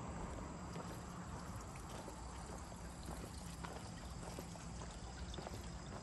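River water flowing steadily, with a few faint scattered ticks.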